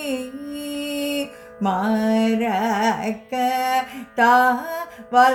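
Carnatic vocal in raga Kambhoji: a woman sings long held notes with wavering, oscillating ornaments (gamakas) in several phrases with short breaks, over a steady drone.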